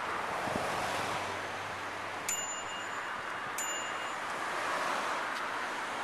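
A small bell dings twice, a little over a second apart, each a short, bright metallic ring that dies away quickly, over a steady background hiss.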